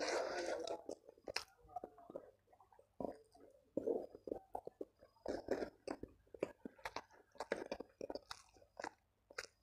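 Close-miked eating sounds: a person chewing a mouthful of rice and shredded chicken with irregular wet mouth smacks and clicks. A louder rustling burst comes in the first second.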